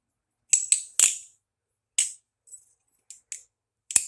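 Will Hirsch Vulp balisong (a bushing-pivot butterfly knife) being flipped: its handles clack and click sharply as they swing and close, about eight clicks, three in quick succession about half a second in and a pair just after three seconds.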